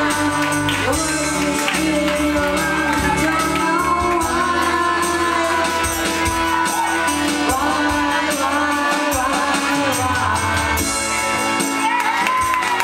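Karaoke backing music playing through the loudspeakers, with a singing voice over it.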